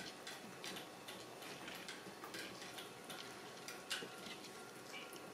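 Faint, irregular clicks and taps on a wooden floor from a black Shiba Inu puppy's claws as it scrabbles and paws at a crab pinching its nose. A slightly sharper click comes near the end.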